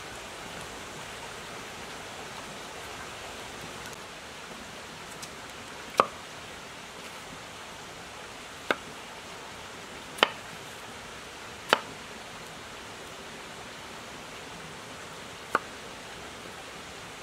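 Knife cutting through a peeled potato and striking a wooden cutting board, five separate sharp knocks spaced a second or more apart, over the steady rush of a river.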